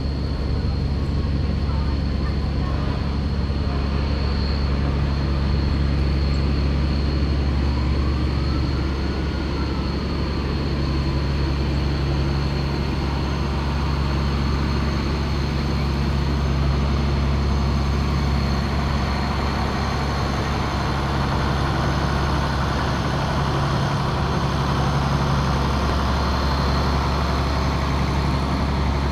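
Vehicle engine idling with a steady low drone.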